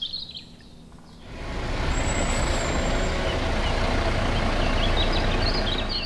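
Concrete mixer truck running, a steady engine rumble that comes in about a second in and holds.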